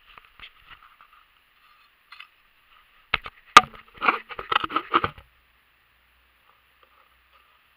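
Close handling noise as the camera is set down and settled in the snow: crunching and knocking for about two seconds, with one sharp knock near the start of it.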